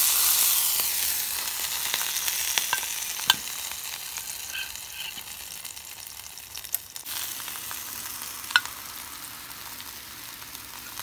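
Ribeye steak sizzling on an indoor electric grill: an even high hiss of frying fat that slowly fades, broken by a few sharp clicks.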